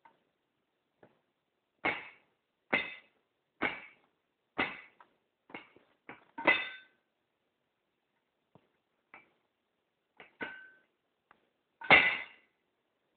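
Metal cooking pot lid clanking and rattling against the pot as a cat paws and noses at it to open it: a run of sharp clinks with short ringing, about one a second at first, then a quicker cluster, and the loudest clank near the end.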